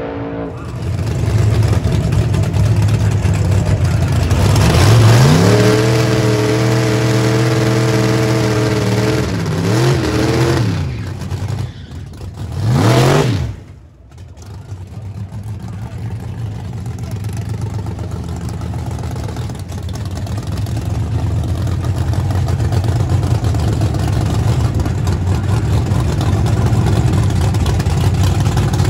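Drag car engines revving hard. One climbs quickly and holds a steady high pitch for several seconds, drops and rises again, then gives a quick rise and fall. After an abrupt break, the white square-body Chevrolet pickup race truck's engine runs with a steady deep rumble that grows louder as it rolls toward the line.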